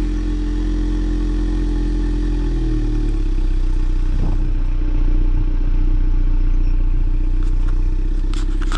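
Ford Mustang EcoBoost's 2.3-litre turbocharged four-cylinder idling steadily, heard close behind the exhaust tips with a deep, even rumble. The car is shifted into reverse with the engine running, so the reverse light comes on.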